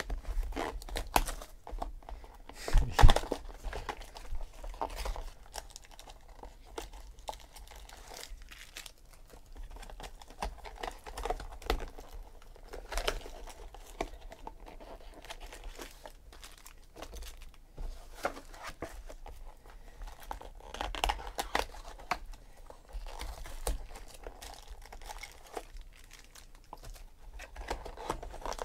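Clear plastic shrink-wrap on a trading-card box being torn open and crinkled off by hand, with irregular rustling and small handling clicks. A louder knock comes about three seconds in, as the box is handled.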